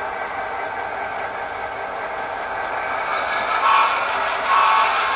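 Sound-equipped HO-scale diesel locomotive running, its engine sound steady, with two short horn toots near the end, about a second apart.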